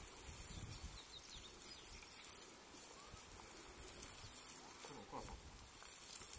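Quiet outdoor background with a low rumble. A few faint high chirps come early on, and a brief faint voice-like call comes about five seconds in.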